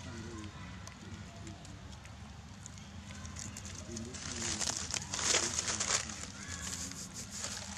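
Dry fallen leaves rustling and crackling, loudest from about four to six seconds in, over faint distant voices.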